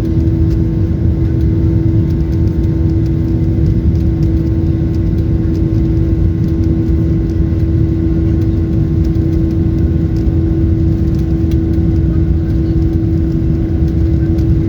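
Steady, loud engine drone and rumble inside an airliner cabin, with a constant hum running through it.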